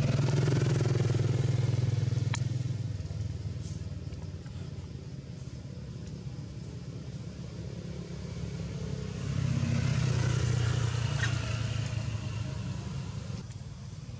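A motor vehicle engine running close by, loud at first and fading after about three seconds, then passing again, rising about nine seconds in and dying away near the end.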